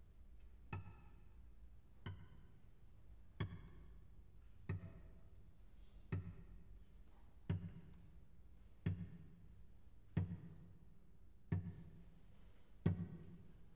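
Slow, evenly paced percussion strikes in a contemporary music composition, about one every 1.3 seconds, ten in all. Each hit rings briefly with several overtones before dying away, and the strikes grow louder as they go.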